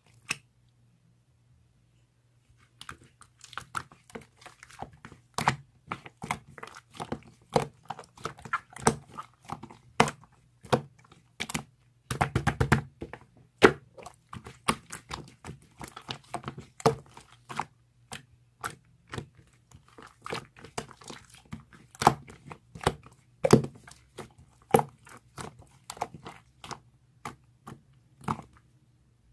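Clay slime being squished, pressed and poked by hand, giving an irregular run of sharp clicky pops and crackles that starts a few seconds in.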